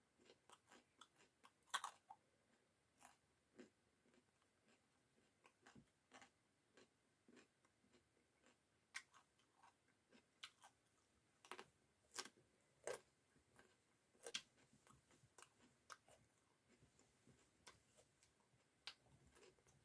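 Raw carrot being bitten and chewed close up: faint, irregular crisp crunches and mouth clicks, a few louder bites among them.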